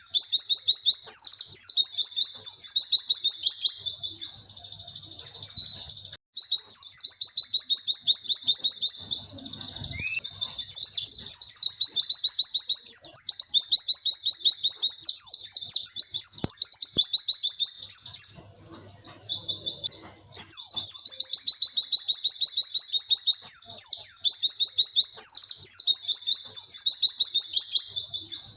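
Pleci (white-eye) singing long, clear 'witwit' song: long trains of rapid, high twittering notes, broken by short pauses about four, nine and nineteen seconds in.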